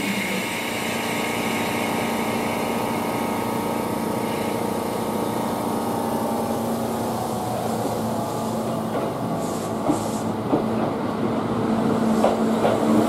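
Kintetsu limited-express electric train humming steadily while standing at the platform, then starting to pull away near the end, its motor whine rising in pitch, with a few clicks from the wheels.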